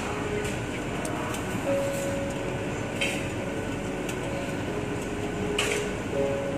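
Steady background din with three light clinks, like metal utensils tapping against the cooking pans.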